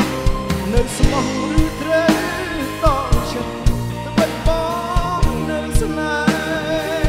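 Live pop band playing: drum kit keeping a steady beat about twice a second under sustained chords and a wavering melodic lead line.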